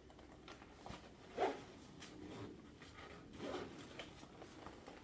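A purse being handled: faint rustling of the bag and a zipper being pulled, in short scrapes with a louder one about a second and a half in.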